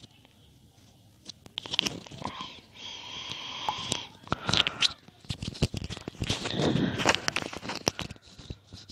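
A person laughing under their breath in short, breathy bursts, with scattered small clicks.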